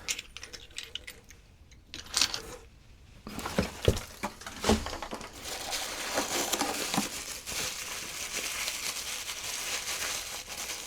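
Packing material being unwrapped from knapped stone points: a few sharp clicks and knocks, then steady crinkling and rustling from about three seconds in.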